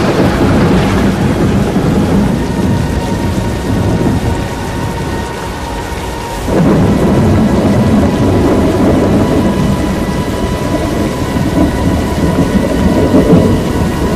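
Loud roar of a tornado: dense wind and heavy rain noise, with a dip in level that jumps back up suddenly about six and a half seconds in.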